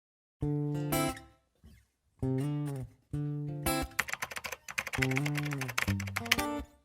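Acoustic guitar playing the intro of a song, starting about half a second in. A few separate ringing chords give way to quicker strumming with sharp percussive string clicks.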